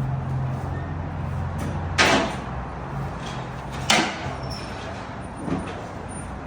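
Two loud, sharp metal clanks about two seconds apart, then a softer knock, over a low steady mechanical hum that fades out partway through.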